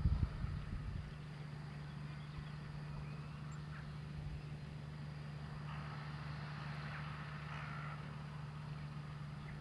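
JCB Fastrac tractor engine running steadily as a distant low hum while it tows a Joskin twin-axle slurry tanker that is spreading. Wind buffets the microphone in the first second.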